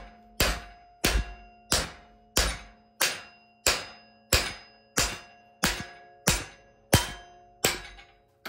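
Hammer blows on heated 1-inch steel flat bar clamped in a vise, bending it over to 90 degrees. The blows come in a steady rhythm, about three every two seconds, each with a short metallic clang and ring.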